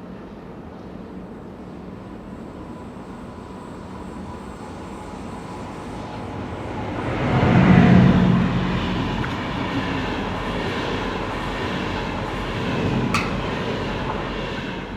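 A rail vehicle passing close by: it builds over a few seconds, is loudest about eight seconds in, then runs on with high ringing tones over the rumble. A single sharp click sounds near the end.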